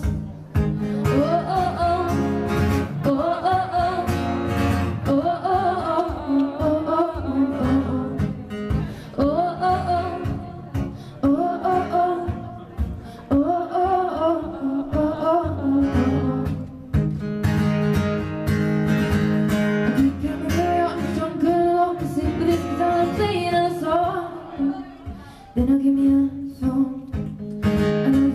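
Live song: a woman singing while strumming an acoustic guitar, heard from the audience.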